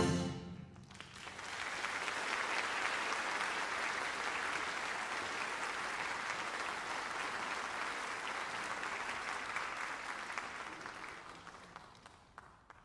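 Audience applauding a wind orchestra. The band's last chord dies away in the hall's reverberation at the start, the clapping builds about a second in, holds steady, and fades out near the end.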